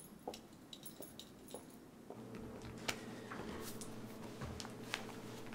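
Faint, light footsteps and small clicks in a quiet hallway, over low room tone. About two seconds in, a faint steady hum comes in.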